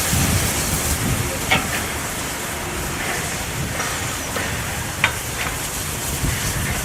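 Steam hissing steadily from a narrow-gauge steam locomotive, with a low rumble beneath and two sharp metallic knocks, about a second and a half in and again near five seconds.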